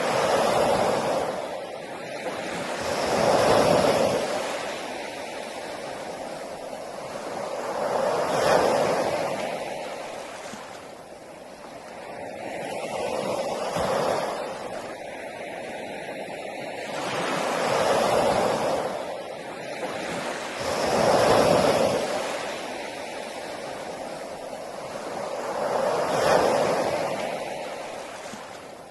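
Ocean waves breaking on a beach, each swell of surf rising and falling back about every five seconds.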